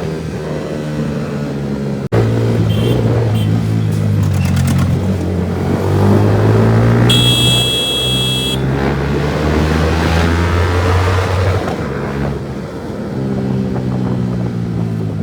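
Motorcycle with a new, very loud aftermarket exhaust riding on the road, its engine note rising and falling as it pulls and eases off. A shrill steady tone sounds for about a second and a half around the middle.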